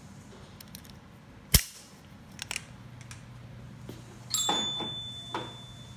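Metal shop tools being handled: one sharp metallic snap about a second and a half in, a few light clicks, then a short scraping clatter of metal with a faint ring a little past four seconds in, as the torque wrench and action wrench are readied on a barrel vise.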